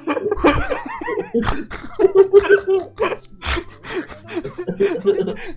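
Several people in a fit of uncontrollable laughter, in many short, broken bursts.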